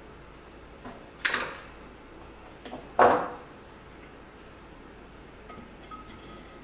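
Pruning shears and pussy willow branches handled at a marble countertop. There are two sharp clacks about a second and a half apart, the second louder, each with a faint tick just before it.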